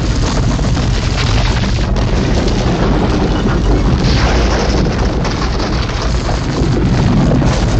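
Loud, continuous low rumble of a rolling-boulder sound effect.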